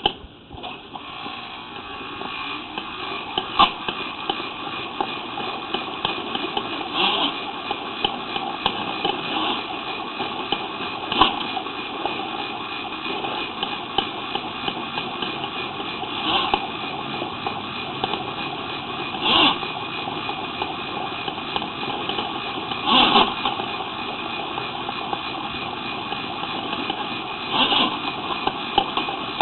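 A motor running steadily, with short knocks or rattles every few seconds.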